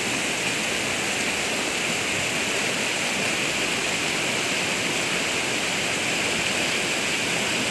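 Rain-triggered lahar from Mount Semeru, a fast grey volcanic mudflow, rushing steadily down the river channel in a continuous churning water noise.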